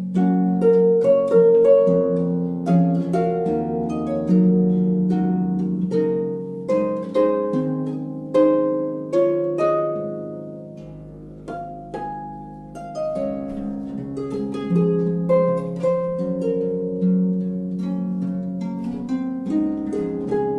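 Background music: a gentle melody on plucked strings, notes struck one after another and dying away.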